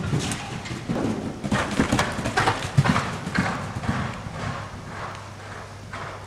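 A ridden horse's hooves beating on indoor-arena sand at a canter. The hoofbeats are loudest as it passes close by and fade as it moves away near the end.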